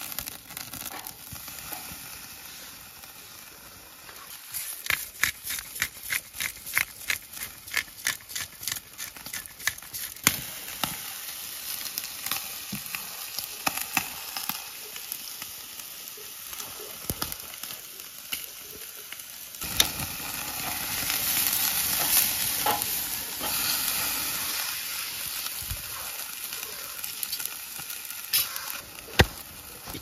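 Thick beef steak sizzling on a wire grill grate over glowing charcoal, with a quick run of sharp pops a few seconds in and a louder, steadier sizzle from about two-thirds of the way through.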